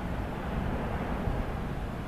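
Jet engines of a Boeing 737 airliner on final approach, a steady rumble.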